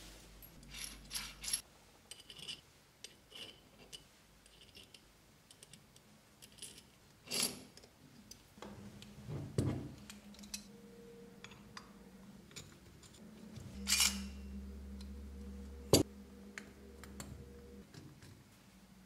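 Metal parts of a model engine kit clicking and tapping against each other as they are handled and screwed together with a hex key. The clicks are scattered and sharp, and the loudest come about two-thirds of the way through.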